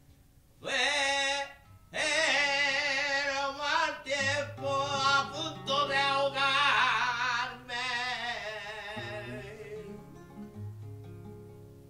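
Male flamenco singer (cantaor) singing long, drawn-out phrases with strongly wavering pitch, over nylon-string flamenco guitar accompaniment. The voice comes in about a second in and fades out near the end, leaving the guitar.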